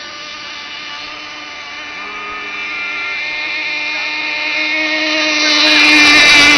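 Gas-powered RC ShockWave boat's small engine running steadily at one pitch, growing louder as it comes closer; about six seconds in it is loudest and its pitch dips as it passes by.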